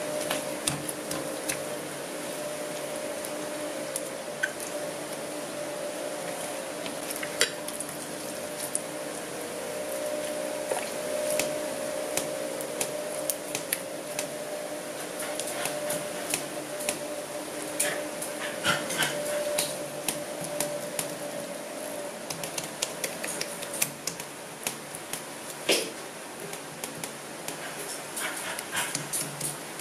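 Foam-bead slime being pressed and patted flat by hand, giving irregular crackling clicks, over a steady hum.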